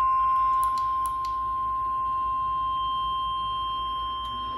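NOAA Weather Radio warning alarm tone (1050 Hz) sounding through a weather radio: one long, steady, high-pitched tone that announces a warning message is about to be read.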